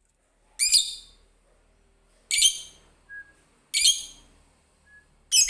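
Lovebird calling: four loud, shrill calls about a second and a half apart, with two faint short whistled notes between the later calls.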